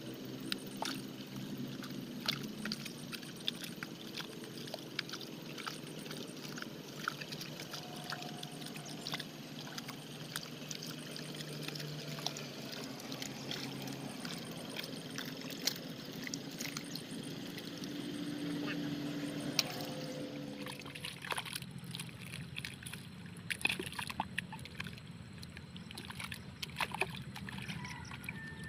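Wet paddy mud and shallow water sloshing and squelching as a person wades through a flooded rice seedbed and smooths the mud by hand, with many small wet clicks and splats.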